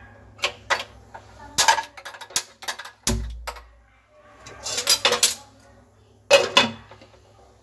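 Metal and glass kitchenware clinking and knocking against a frying pan of soaked moong dal in water, a few separate clicks and then a short clatter, ending with a glass lid set down on the pan with a loud knock about six seconds in.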